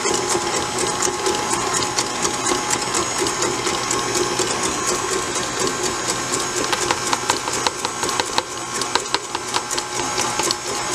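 Electric stand mixer running on low speed, its wire whisk beating eggs as sugar is poured in. Its motor whirs steadily, with irregular clicking and ticking that gets busier in the second half.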